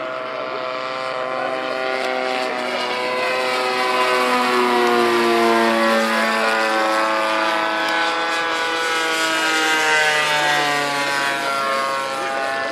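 Small petrol engine of a radio-controlled scale model airplane flying past at steady throttle. Its note slides down in pitch as it passes, loudest around the middle and again near the end, then rises again.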